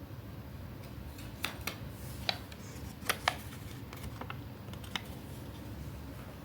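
Scattered sharp clicks and taps from hands working paper craft pieces, about six in all, the loudest two close together around three seconds in, over a steady low hum.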